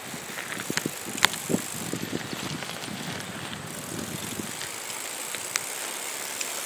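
Recumbent electric trike rolling on asphalt: steady tyre and drivetrain noise with a few light clicks.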